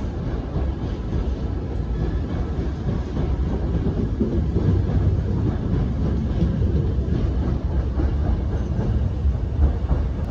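Hankyu 1000-series electric commuter train pulling out of the station and passing close by, a steady low rumble of wheels on rail with light clicking over the rail joints.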